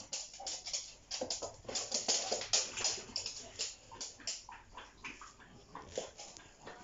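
A puppy and an older dog playing rough on a hard laminate floor: a busy run of scuffles and skittering claws, busiest in the first four seconds, with short dog noises mixed in.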